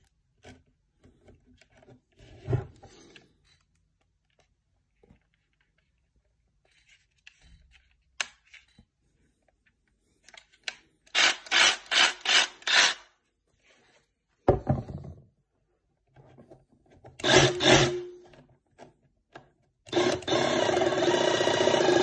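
Handling noises from cordless power tools being picked up and set down: scattered knocks and clicks, and a quick run of about six rubbing strokes near the middle. About two seconds before the end a cordless tool's electric motor starts and runs steadily.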